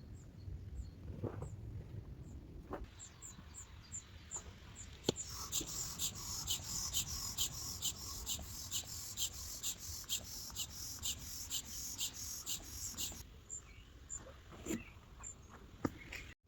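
Wind rumbling on the microphone, with a high chirping call repeated about twice a second from about five seconds in until about three seconds before the end, and a few faint high chirps before it.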